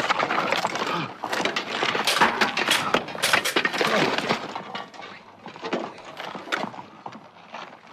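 Plate armour clattering and clinking with knocks from a scuffle on the ground, dense and loud for about the first four seconds, then thinning to scattered clinks.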